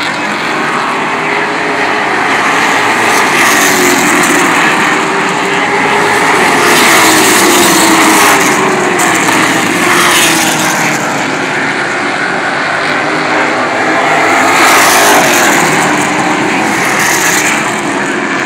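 Race cars' engines on an asphalt short-track oval passing by several times. The sound swells as cars go past, with the engine pitch sliding down as each passes.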